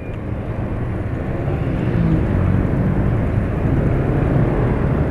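Motor scooter running under way in city traffic, with other motorcycles' engines around it: a steady low engine and road noise that grows louder about two seconds in.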